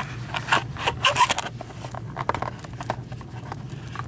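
Light clicks and taps from a cardboard box and a plastic card holder being handled: a quick cluster in the first second and a half, then sparser, over a steady low hum.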